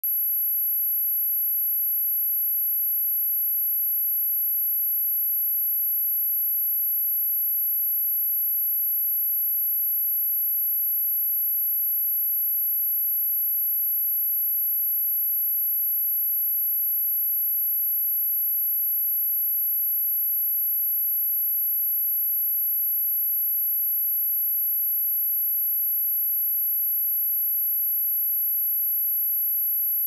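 A steady, high-pitched pure sine tone at 11672 Hz, one unbroken tone at constant loudness, played as a speaker test tone.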